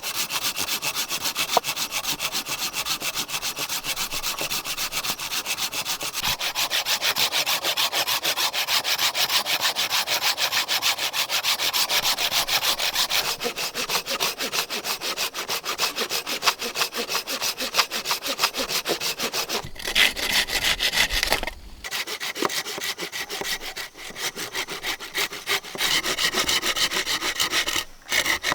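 Fast, steady back-and-forth rubbing strokes on a hard surface, with short pauses about 20, 22 and 28 seconds in.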